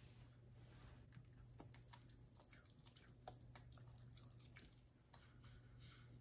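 Chinese crested dog chewing food, faint irregular crunching clicks of its bites.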